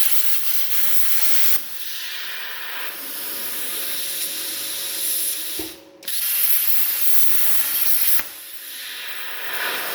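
Plasma cutter arc cutting on a CNC table: a loud, steady hiss of the arc and compressed air. Its level shifts a few times, and the arc cuts out for a moment about six seconds in, then fires again.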